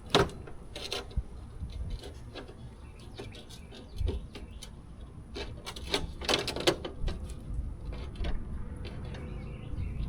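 Handling noises of a replacement side window glass being worked into a car door: scattered clicks and knocks with a few short squeaks, the loudest just after the start and around six to seven seconds in.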